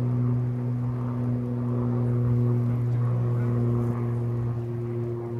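A steady, low-pitched mechanical drone with overtones, holding one pitch throughout, like an engine running at constant speed.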